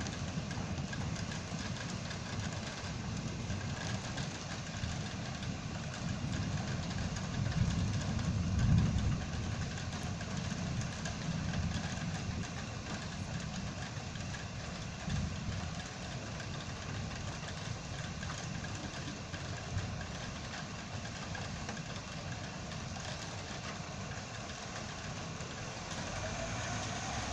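Vehicle engine idling steadily, with a deeper low rumble that swells and fades about eight to nine seconds in.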